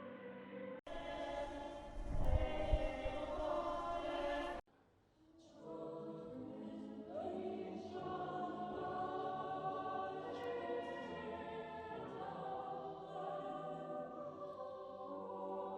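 AI-generated choir-like sound effects: sustained massed voices singing held chords, played as separate clips that cut off abruptly about a second in and again about four and a half seconds in, the second clip carrying a deep low rumble beneath the voices.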